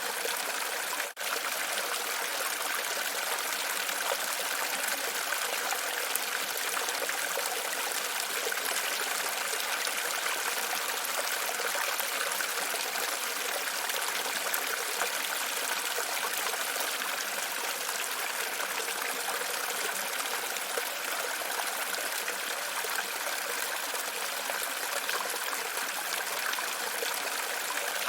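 Running water splashing and trickling steadily, with a momentary break about a second in.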